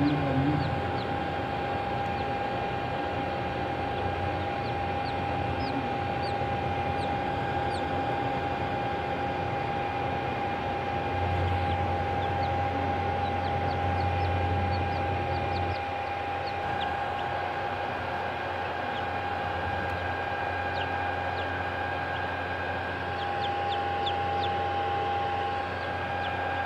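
Short, high peeps from newly hatching Australorp chicks, scattered throughout, over a steady mechanical hum with a fixed tone.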